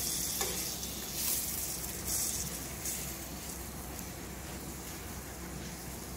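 Butter and oil sizzling under a roti on a hot non-stick tawa, a steady hiss that is strongest in the first couple of seconds and then dies down. A few faint clicks sound over it.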